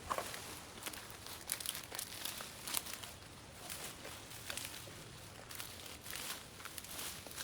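Dry leaves and vines rustling and crackling as overgrowth is pulled and handled, in irregular bursts of snapping and crinkling.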